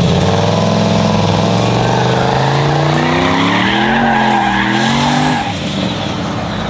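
A truck's engine is held at high revs with its tyres squealing in a burnout. The engine note climbs steadily, wavers near the middle, then drops off about five seconds in.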